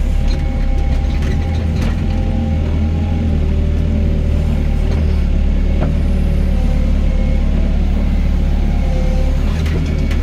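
Doosan DX55 mini excavator's diesel engine running steadily under load, with a whine that wavers in pitch as the hydraulics work and a few sharp knocks as it digs and loads earth.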